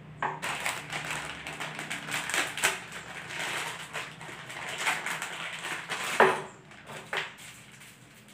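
Crinkling plastic bag dragged over a particleboard panel, scraping loose wood chips across it, then two sharp knocks of hardware on the board, the first the louder.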